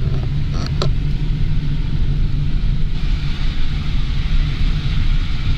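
Car driving, heard from inside the cabin: a steady low engine and road rumble with tyre hiss that grows louder about three seconds in. A couple of short clicks come just under a second in.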